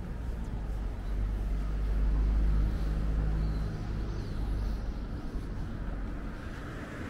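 A motor vehicle's engine rumbles past, growing louder to a peak about two to three seconds in and then fading, over steady outdoor street noise.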